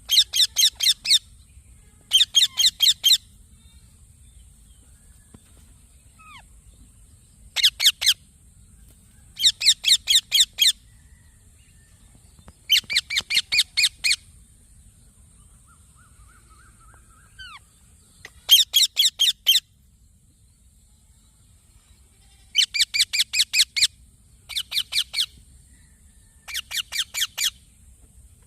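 Young Indian ringneck parrot calling in about ten short bursts of rapid, repeated high-pitched chirps, each burst lasting about a second, with pauses between.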